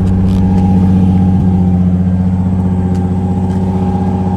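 Nissan 350Z's 3.5-litre V6 idling steadily as it warms up just after being push-started. The car has to be push-started because its starter will not crank the engine.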